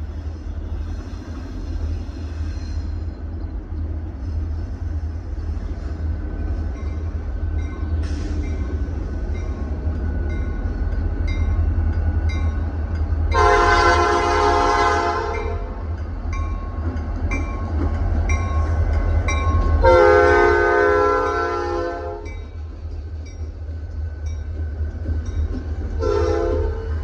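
Norfolk Southern freight train's two diesel locomotives rumbling steadily as they approach and pass, followed by rolling freight cars. The locomotive horn sounds two long blasts about six seconds apart, then a short blast near the end.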